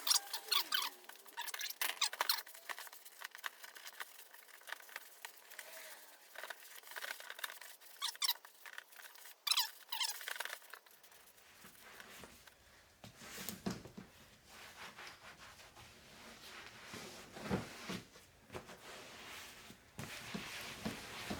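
Squeaky, scratchy rubbing strokes of saddle soap being worked into vinyl seat upholstery and its seams, in irregular bursts.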